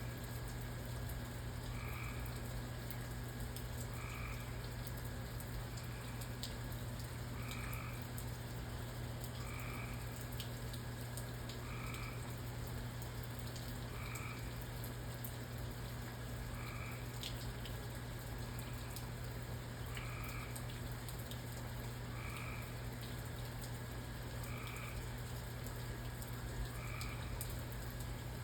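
A frog calling, one short croak repeated about every two seconds. Behind it are a steady rain hiss with scattered drip ticks and a steady low hum.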